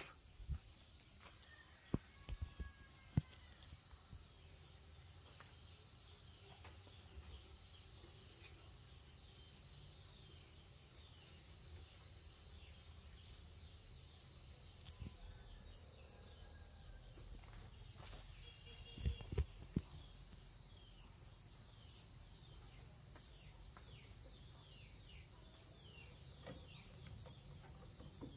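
Steady high-pitched insect chorus, with a few short knocks in the first few seconds and a cluster of knocks about nineteen seconds in.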